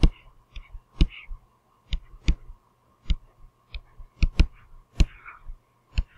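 A stylus tapping and scratching on a writing tablet while handwriting: about a dozen sharp clicks at an irregular pace, with brief faint scratches between them.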